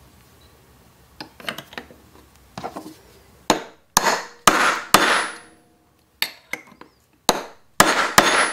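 Hammer driving a steel punch to knock a ball bearing out of a DLE 55 engine's crankcase half, metal on metal. A few light handling clicks come first. From about three and a half seconds in there are about ten sharp, short-ringing taps.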